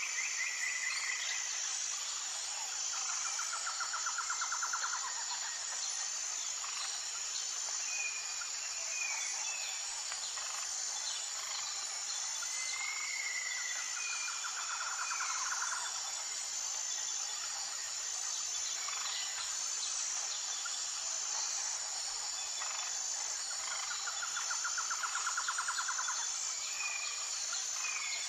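Nature ambience: a steady, high-pitched chorus of insects such as crickets, with short bird chirps and a rapid trilled call that comes back about every ten seconds.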